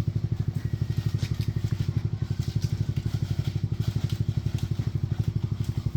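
Motorbike engine idling steadily, with a quick, even low putter.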